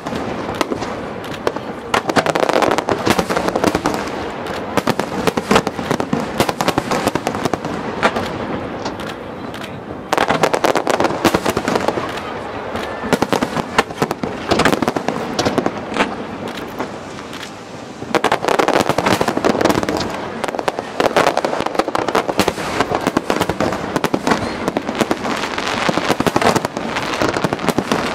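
Aerial fireworks shells bursting in rapid succession, a dense mix of bangs and crackling, swelling into heavier volleys about 2, 10 and 18 seconds in.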